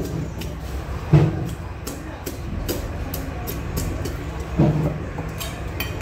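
Heavy curved knife chopping the fins off a large billfish: two dull thuds, about a second in and near the end, over a steady low background rumble.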